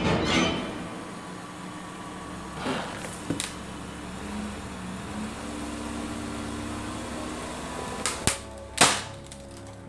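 Wooden skateboard deck creaking and cracking under a car's tyre: a couple of faint clicks, then three sharp cracks in quick succession near the end, the last the loudest. A steady low hum from the car's running engine lies underneath.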